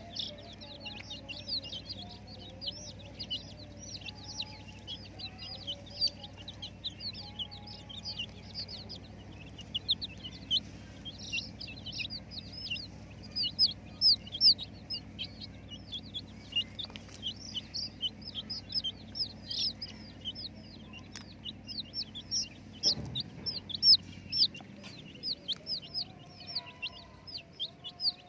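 A brood of young chicks peeping without pause, a dense stream of short, high, falling chirps several times a second. A dull knock sounds once about three quarters of the way through.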